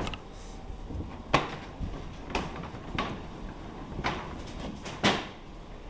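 Scattered knocks and clunks of things being handled, about five over a few seconds, the loudest near the end, over a low steady background hum.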